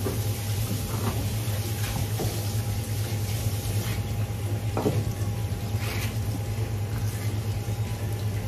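Workroom background at a fish-processing bench: a steady low hum and an even hiss like running water, broken by a few short, sharp knocks of work on the bench.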